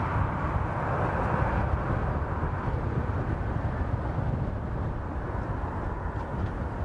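Jet engine noise from an Airbus A320-232's IAE V2500 turbofans at takeoff thrust as the airliner rolls away down the runway. It is a steady low rumble with a rushing hiss above it, and the hiss fades gradually as the aircraft draws away.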